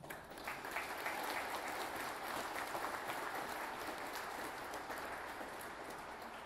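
Audience applauding: a crowd of hand claps that starts at once and slowly fades toward the end.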